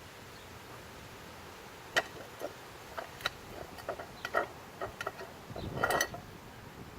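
Irregular light clicks and taps starting about two seconds in, a few per second, with a brief scraping rustle shortly before the end.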